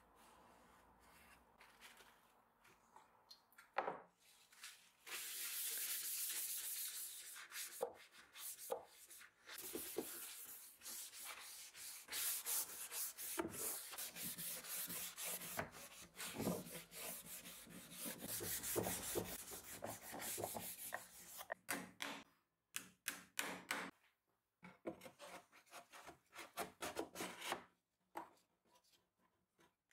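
Gloved hand rubbing a pad over the wood of an old wooden suitcase in long runs of back-and-forth scrubbing strokes. After about twenty seconds the rubbing breaks up into short scrapes and light knocks with gaps between.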